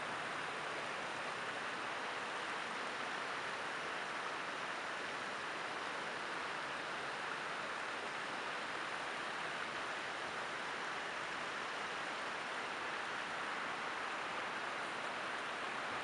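Creek water rushing steadily over a low rock ledge across the stream, an even, unchanging rush of water.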